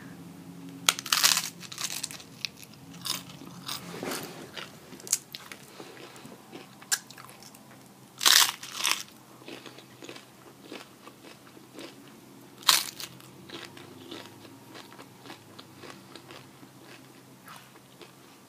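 Close-up crunchy bites and chewing of fried tortillas: irregular sharp crunches with quieter chewing between, the loudest bites about a second in, around eight seconds in and near thirteen seconds.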